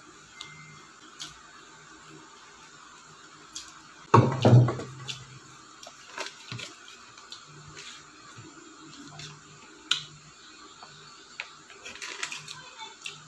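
Paper and plastic being handled: small clicks and rustles as a sauce sachet is torn and squeezed over a paper fries bag. One loud, short burst comes a little after four seconds in.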